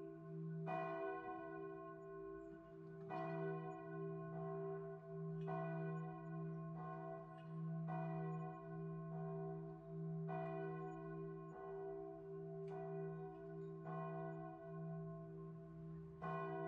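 Church bell tolling slowly, struck about every two and a half seconds, each stroke ringing on into the next.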